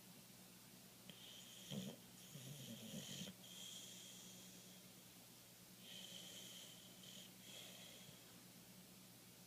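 Boxer dog asleep and snoring faintly: spells of high whistling breaths come and go, with a brief lower, rougher snore about two seconds in.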